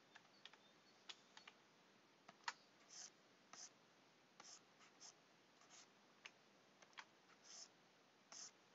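Faint scratching of a stylus on a graphics tablet: short strokes of a fraction of a second each, mixed with scattered sharp clicks, the loudest about two and a half seconds in.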